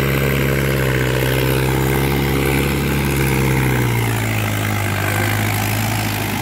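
Mahindra 575 DI XP Plus tractor's four-cylinder diesel engine running steadily under load as its cage wheels churn through a flooded, muddy paddy field, with water and mud splashing. The engine note drops slightly about four seconds in.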